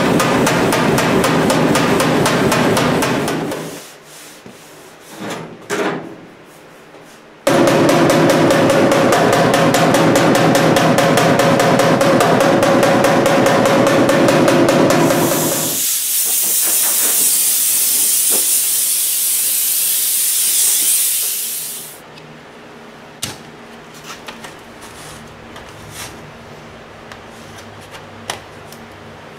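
Rapid tapping of a body hammer on the metal edge of an MGA's front-end grille opening, reshaping the panel. It comes in two long runs with a pause of about four seconds between them. Then a loud hiss lasts about six seconds, followed by quieter scrapes and clicks of a plastic spreader mixing body filler on cardboard.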